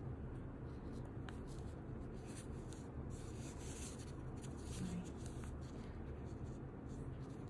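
Soft scratchy rubbing and rustling of yarn being drawn through stitches with a crochet hook, over a steady low hum.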